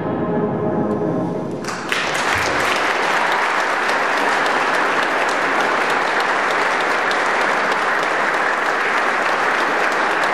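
A concert band's closing chord of the march cuts off and its echo fades in the hall. Under two seconds in, the audience breaks into loud applause that carries on.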